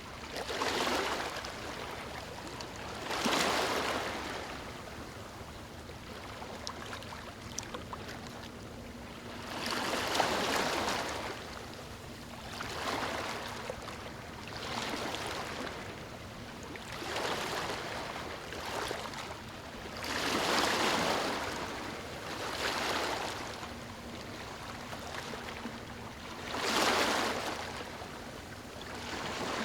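Gentle waves lapping on a beach: a wash of water swells and fades every few seconds at an uneven pace, over a steady background hiss.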